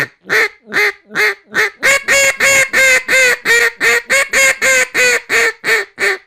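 Acrylic Jase Robertson Pro Series double-reed duck call blown in a long run of about twenty loud quacks, roughly three a second, the notes drawn out in the middle and getting shorter and quieter near the end. The acrylic gives a more scratchy tone than the wooden version, suited to getting passing ducks' attention.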